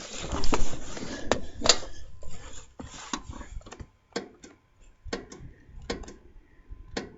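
Scattered clicks and knocks, with rubbing and rustling in the first two seconds, from handling the controls of a Craftsman lawn tractor. The starter makes no sound at all when starting is tried, because the battery is dead.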